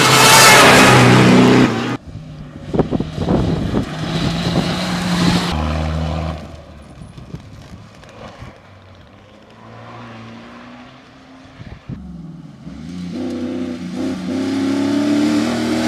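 Cross-country rally cars' engines passing at speed in a series of short cut clips: the loudest pass comes first and cuts off abruptly about two seconds in, followed by quieter engine runs and revving, building again near the end.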